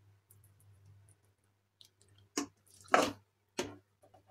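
A steel spoon serves soft, mushy cooked khichdi from a pressure cooker onto a steel plate: three short squishy knocks, the middle one loudest, after a quiet stretch with a faint low hum.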